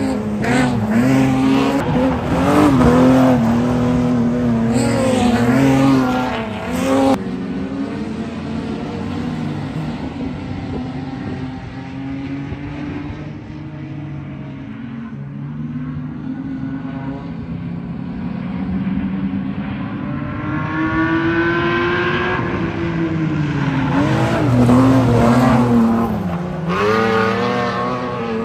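Speedway stock cars racing on a dirt oval, their engines revving up and dropping back as the pack goes through the turn and down the straight. The engines are loud in the first several seconds, drop suddenly to a more distant note about seven seconds in, then swell again as the cars come back around near the end.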